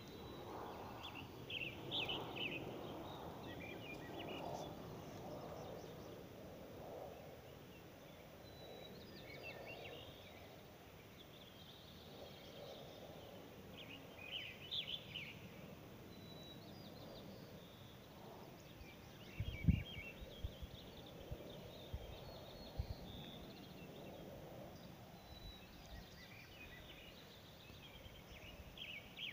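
Faint birdsong: short chirping phrases every few seconds, over a low outdoor hush. About twenty seconds in, a few dull thumps.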